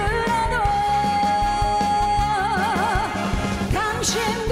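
Korean trot song performed live: a woman sings one long held note that breaks into vibrato about halfway through, then starts a new phrase near the end. A live band with drums and electric guitar plays underneath.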